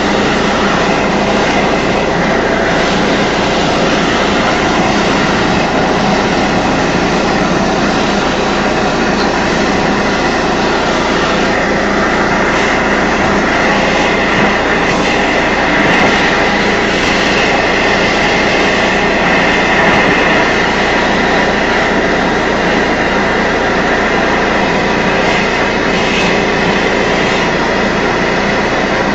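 Propane melting torch running against a crucible of brass, together with a running air compressor: a loud, steady rushing noise with a faint hum under it.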